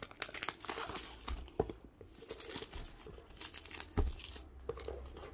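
Plastic wrapping being torn and peeled off a camera box, crinkling and crackling, with a thump about four seconds in as the box is set down on a table.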